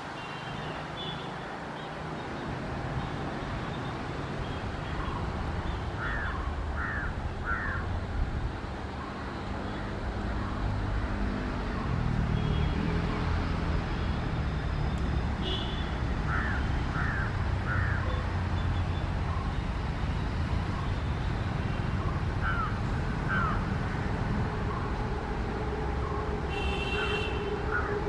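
Rumble of two approaching passenger trains, a WAP-4 electric and an EMD WDP4B diesel locomotive running side by side, growing louder about twelve seconds in, with a steady hum joining near the end. Birds call in short runs of three over it.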